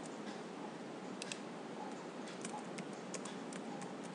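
Computer keyboard typing: scattered key clicks in small clusters over a steady low hiss.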